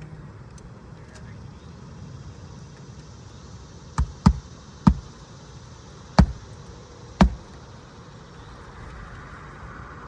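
Five sharp hammer blows on a shingle roof, irregularly spaced in a cluster about halfway through, as the roofer nails or bangs down a shingle.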